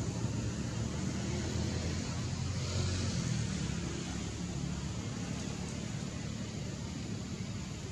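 Steady low outdoor rumble with an even hiss over it, with no distinct animal calls.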